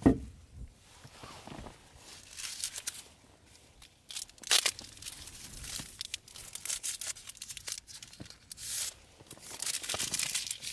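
A metal vacuum flask set down with a sharp thump, then a paper-and-plastic wrapper handled and torn open, with crisp crinkling and tearing on and off.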